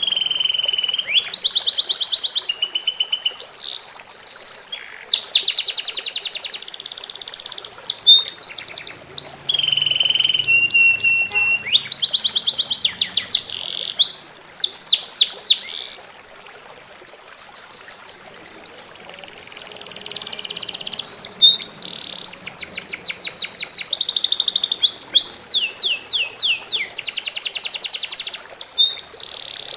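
A songbird singing loud, varied phrases of rapid trills, fast repeated notes and whistled glides, with a short pause in the song about halfway through. A faint steady babble of running water sits beneath the song.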